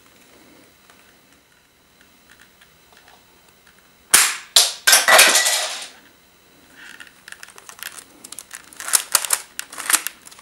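A LEGO brick-built bolt-action sniper rifle model (ORSIS T-5000) firing: a sharp plastic snap about four seconds in, followed by a clatter lasting about a second and a half. From about seven seconds on, a run of quicker, lighter plastic clicks and rattles follows as the rifle is handled.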